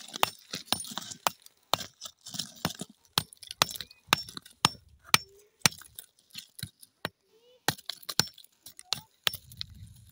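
Loose chunks of broken rock knocking and clinking against one another as they are shifted in a rock pile: a long, irregular string of sharp clacks.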